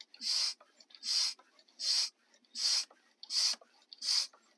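Hand-pumped vacuum fluid extractor being pumped, a short hiss on each stroke about every three-quarters of a second, six strokes in all. The strokes build vacuum in the canister to draw oil up through the suction hose.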